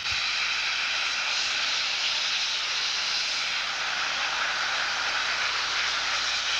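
Steady rushing hiss of the Mirage volcano attraction's waterfalls and steam clouds, heard through an old camcorder recording.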